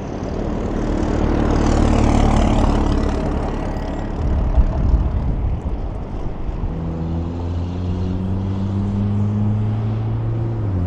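Semi-truck going by: tyre and road noise swells to a peak about two seconds in, then a diesel engine's steady note climbs slowly in pitch and drops sharply near the end.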